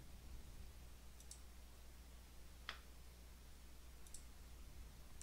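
A few faint computer mouse clicks over a low steady hum: a pair about a second in, a single louder click midway, and another pair near the end.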